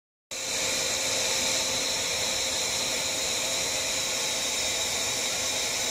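Charcoal forge fire under a forced-air blast: a steady rushing of blown air and fire, with a faint steady whine from the blower running through it. It starts abruptly a moment in.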